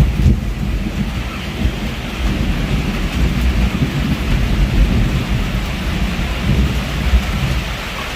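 Heavy rain falling steadily while thunder rumbles low and rolling, with a sharp crack right at the start.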